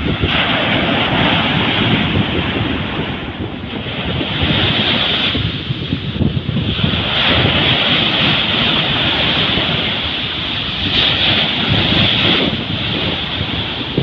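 Sea surf washing up a sandy beach: a continuous hiss of breaking waves and foam that swells and eases every few seconds, with wind rumbling on the microphone.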